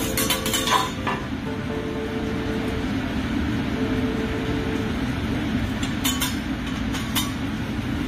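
Metal spatulas clinking and scraping on a steel teppanyaki griddle, a cluster of sharp clinks in the first second and a couple more near the end, over a steady low rumble.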